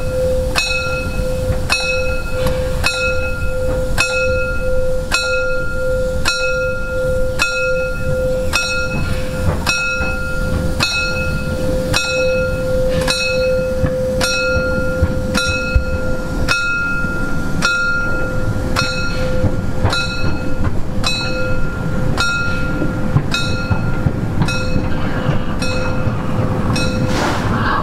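Narrow-gauge steam locomotive ringing its bell steadily while street running, with about three strokes every two seconds over the low rumble of the engine and wheels on the rails. Near the end a hiss of steam comes in.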